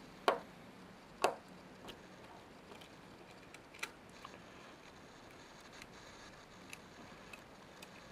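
A few sharp, light clicks as a small screwdriver works the brass off operating pin loose from a Sangamo solar time-switch dial. The two loudest come in the first second and a half, with smaller ticks after.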